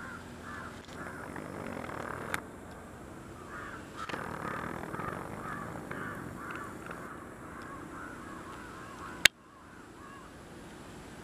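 A bird calling in a rapid run of short, repeated calls, about three a second, with a short pause near the start. There is a sharp click about two seconds in and a louder, sharper click near the end.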